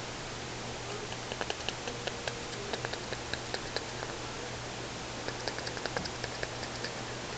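A small dog being played with by hand: irregular quick light clicks and ticks, bunched in runs, over a steady hiss.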